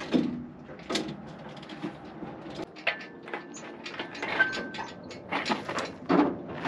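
Irregular metal clunks, knocks and scrapes as an engine hanging from an engine hoist is wiggled and pulled into place in the chassis of a Chevrolet G-506 truck, with a couple of short thin squeaks in the middle.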